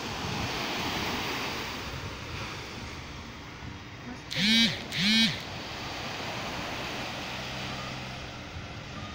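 Small waves washing onto a sandy beach, a steady hiss of surf with some wind on the microphone. About four seconds in, two short loud calls, each rising then falling in pitch, sound one after the other.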